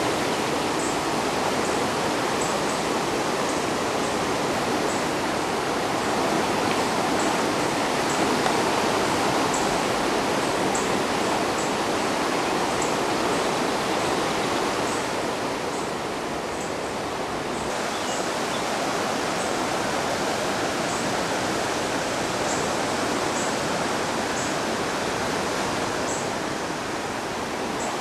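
A river in flood, its fast, swollen current making a steady rushing sound.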